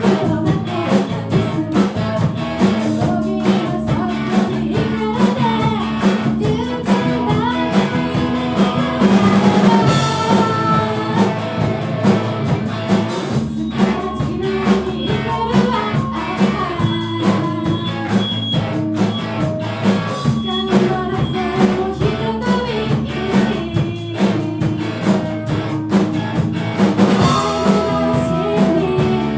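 Rock band playing live: drum kit keeping a steady beat under guitar and bass, with a singer.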